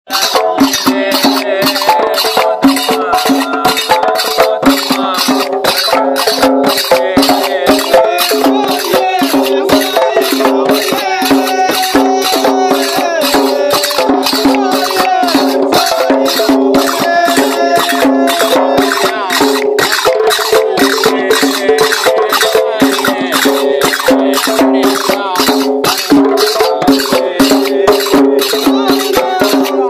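Hand drums, rope-tuned goblet drums among them, beaten in a fast, even rhythm, with men's voices singing along over the drumming.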